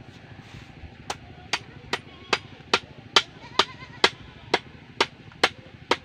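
A bamboo stake being struck repeatedly on top with a machete, driving it into the ground: a dozen sharp knocks at an even pace of about two a second, starting about a second in.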